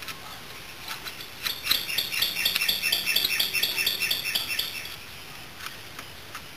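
A bird chirping in a fast run of short repeated notes for about three seconds, with a few faint clicks before and after.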